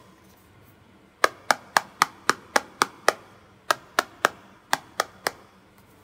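Sharp taps on the iPhone 12 Pro's Ceramic Shield glass screen, testing how it sounds. There is a run of about seven quick taps, about four a second, starting about a second in, then two shorter runs of three near the end.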